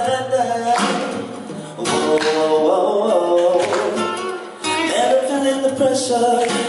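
Acoustic guitar playing a song intro while a male singer vocalizes wordlessly into a microphone.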